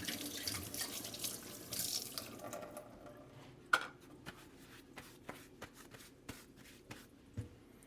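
Tap water running into a sink, shutting off about two seconds in, followed by a few light clicks and knocks.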